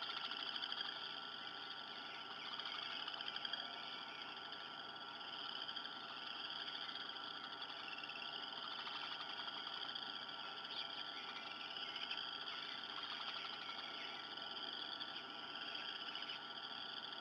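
A dense, steady chorus of frogs calling, a continuous high shimmering trill that does not let up.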